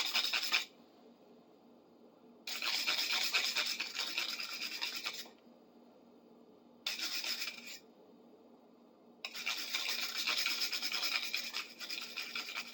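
Sandpaper rubbed by hand along a small steel cold chisel: four bouts of quick scratchy strokes, separated by short pauses.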